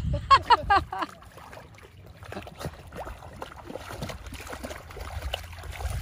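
A small dog wading through a shallow muddy pond, its legs sloshing and splashing the water in irregular little splashes.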